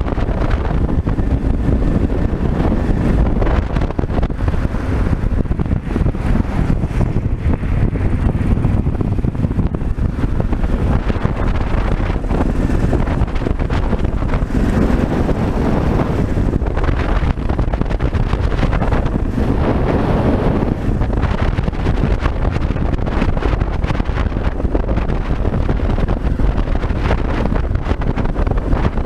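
Wind rushing over the helmet or bike camera's microphone on a Yamaha Ténéré 600 at road speed, with the motorcycle's single-cylinder engine running underneath. A steady, loud rumble without let-up.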